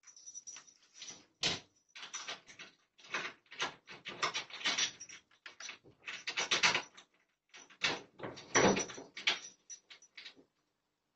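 A wooden door and its fittings rattling and knocking as they are worked by hand: a long run of irregular clunks, scrapes and rattles in clusters, picked up by a security camera's microphone.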